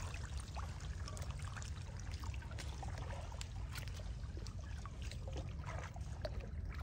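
Water trickling and dripping, with small irregular splashes and clicks, as wet water chestnuts are plucked from their vines in shallow water and dropped into a bowl. A steady low rumble runs underneath.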